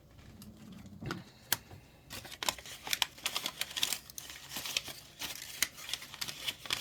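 Small plastic packaging crinkling and rustling as it is handled and torn open, with a quick run of light clicks and crackles that gets busier about two seconds in.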